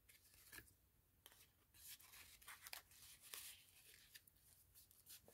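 Faint rustling and soft clicks of paper and card being handled: cards and tags slid in and out of the pockets of a handmade paper journal, a few brief scrapes scattered throughout.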